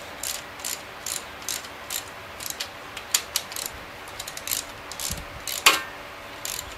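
Hand ratchet clicking in short back-strokes as connecting rod cap nuts are run down snug, about two to three clicks a second, unevenly spaced. There is one louder metallic clink near the end.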